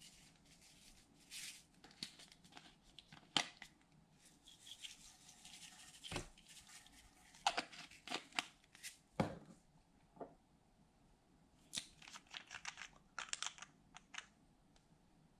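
Faint plastic handling sounds: a small clear container of blue glitter crinkling and clicking as it is opened and shaken out onto a glass dish, with scattered clicks near the end as a bottle cap is worked.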